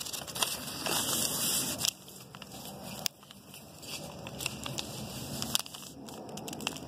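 A paper airplane being folded in half and creased by hand: paper crinkling and rustling with small crackles, loudest in the first two seconds.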